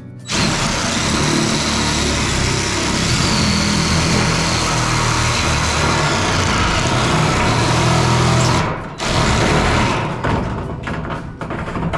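Cordless drill driving a sheet-metal shear attachment through corrugated steel roofing panel, running steadily under load as it cuts along a line. It stops briefly near the end, starts again, and then cuts in short, choppy runs.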